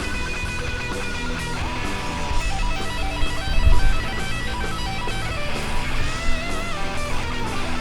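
Background music led by guitar, with notes held and changing throughout.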